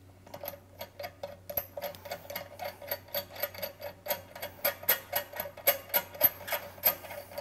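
Ratchet socket wrench clicking in a fast, even run of about four to five clicks a second, louder later on, as the steel bolts on the pump's manifold are loosened.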